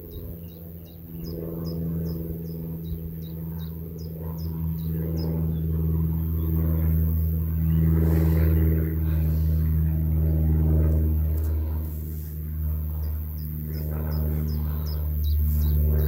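Steady low engine drone that grows louder over the first several seconds and then holds, with a run of short high chirps repeating quickly early on and again near the end.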